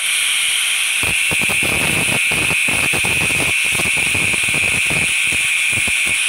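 Electric angle grinder running at full speed with a loud, steady high whine, its abrasive disc grinding a small welded sheet-metal bracket held in locking pliers. From about a second in, a rasp comes and goes as the disc bites the metal.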